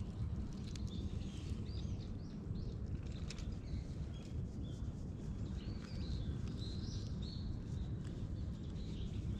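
Small birds chirping over and over in the background above a steady low rumble, with a few faint rustles or ticks.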